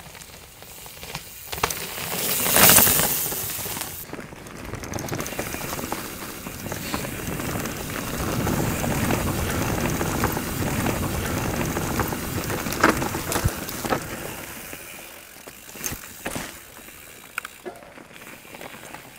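Mountain bike riding down a dirt trail through dead bracken: steady tyre and trail noise with the bike rattling. There is a loud rushing burst about three seconds in and a few sharp knocks later on, and the noise dies down near the end.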